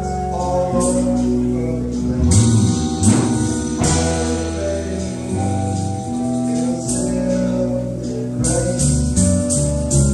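A rock band playing live: held chords under a man's singing voice, with sharp percussion hits marking the beat.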